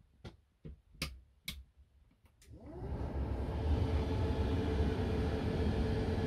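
Several sharp clicks, then the rear air-conditioning blower fan switching on: it spins up over about half a second and settles into a steady rush of air with a hum.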